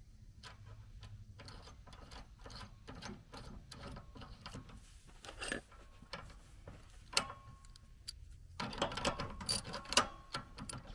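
Small metal clicks and clinks as a nut is handled and threaded onto the riding mower's steering linkage. About two-thirds of the way in, a fast, louder run of ratchet-like clicking begins as a wrench turns the nut tight.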